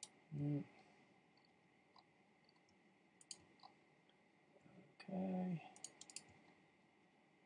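A few scattered sharp computer mouse clicks, with a quick run of three or four clicks near the end, over a faint steady high whine.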